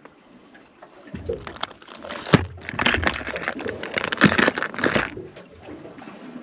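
Metal jigs and their hooks clattering and clicking against a clear plastic tackle tray as a hand rummages through it, a busy run of rattles from about a second in until about five seconds in.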